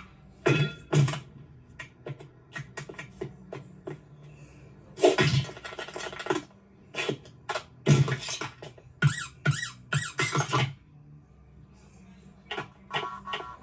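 A run of irregular short knocks, scrapes and rustles in clusters, over a faint low steady hum.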